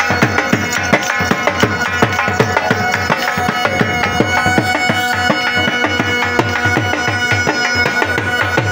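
Loud traditional folk music for a camel dance: a drum beaten fast, about four strokes a second, under a held, wavering melody line.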